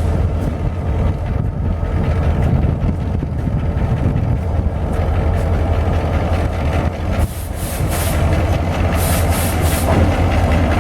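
A diesel freight locomotive running with a steady low engine hum and rumble. Several short hisses come in the second half.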